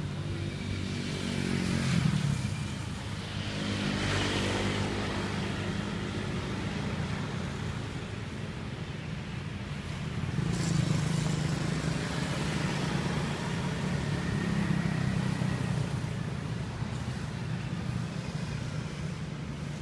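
Street traffic: motorcycles and cars passing on a wide city road, engines rising and fading with each pass. The loudest pass comes about two seconds in, with further passes around four, eleven and fifteen seconds in.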